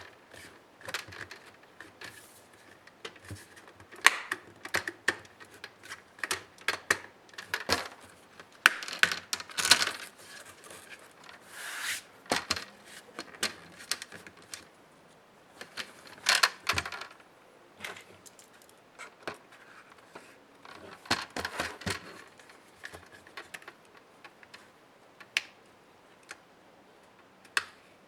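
Irregular clicks, taps and short scrapes of small plastic and metal laptop parts being handled and worked with hand tools during disassembly, with a few brief rustling scrapes among the clicks.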